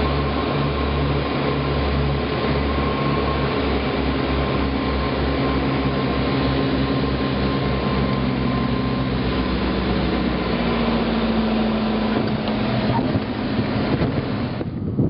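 Single-engine light aircraft's 180-horsepower piston engine and propeller running steadily, with a low throbbing beat that speeds up about halfway through.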